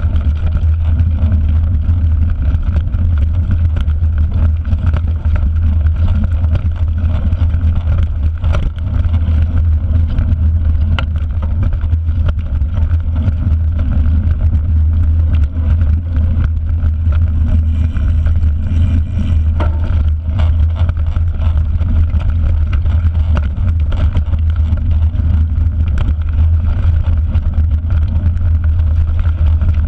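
A mountain bike ridden fast on a muddy dirt forest track, heard from a handlebar-mounted action camera: steady wind buffeting and low rumble on the microphone with tyre noise and frequent small clicks and rattles from the bike over bumps.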